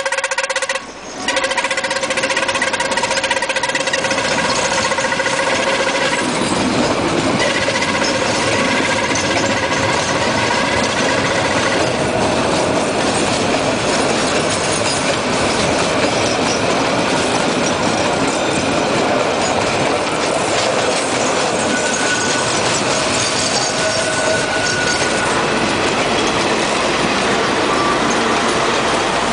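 Henschel diesel locomotive horn blowing a 'coughing' blast, broken by a short gap about a second in and fading out over the next several seconds. Then the loud, steady noise of the locomotives' diesel engines and the empty freight wagons passing.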